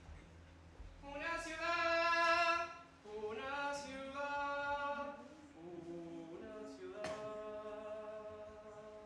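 Men's murga chorus singing a cappella in Uruguayan murga style, in long held chords. The singing comes in about a second in, in several sustained phrases, the first one the loudest.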